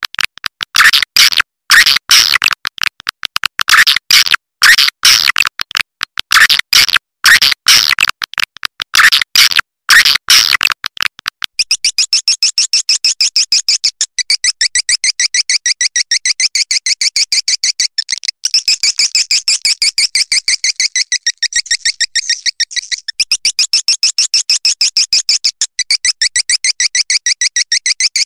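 Swiftlet call recording, a 'calling sound' of the kind played to lure swiftlets. For about the first eleven seconds it is a run of sharp, high chirps in quick groups; after that it turns into a fast, continuous high twittering of many pulses a second.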